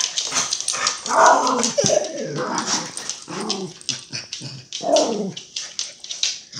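Hungry Pomeranian grumbling at her owner in a series of short growly moans and whines, about four separate vocal sounds.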